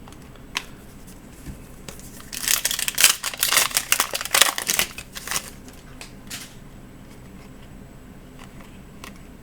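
Trading card pack wrapper crinkling and tearing as it is ripped open, a rapid run of crackles lasting about three seconds, with a couple of light clicks from the cards being handled.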